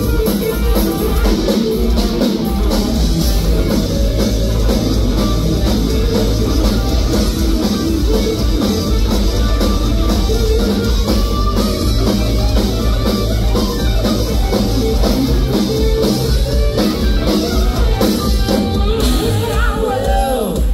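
Live rock band playing loud: electric guitar over bass and a drum kit, heard from the audience.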